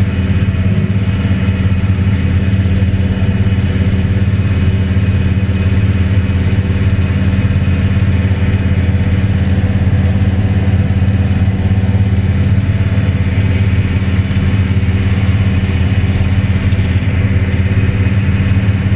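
John Deere combine running steadily as its belt pickup header lifts a barley swath into the feeder: a loud, even machine drone.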